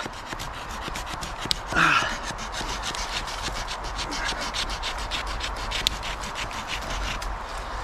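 Small folding pocket saw cutting through the base of a live green sapling in quick, steady back-and-forth strokes. The stem is bent away from the cut to open the kerf and keep the blade from binding.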